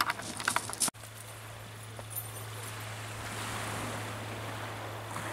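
Calm sea washing gently on a shingle beach: an even, steady hiss, with a steady low hum underneath. A few sharp clicks in the first second end at a sudden break.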